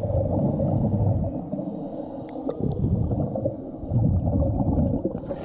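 Underwater gurgling and rumbling of a diver breathing through a hookah regulator, the exhaled bubbles coming in surges a second or two apart, heard through an underwater camera.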